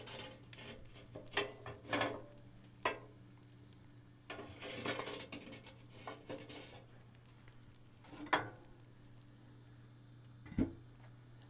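Steel rebar hanging bars of a Pit Barrel Cooker clinking and knocking against the barrel rim as they are set back in place, a few separate metal clicks. Near the end the steel lid is set onto the barrel with a low thud, over a faint steady hum.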